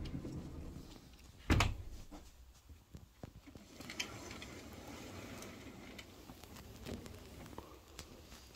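One loud thump about a second and a half in, followed by faint rustling and a few soft clicks.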